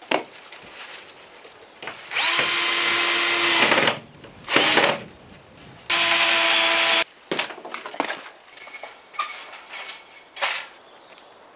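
Power drill running in two long runs of about two seconds and one second, with a short burst between them. Its motor whine spins up at the start of the first run. Scattered small clicks and knocks follow.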